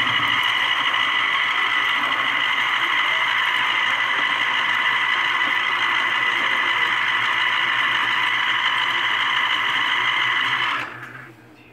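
Philco Citrus Turbo electric citrus juicer running, its motor and reamer whirring steadily while an orange half is pressed down hard on the cone. The motor holds its speed under the pressure, then stops near the end.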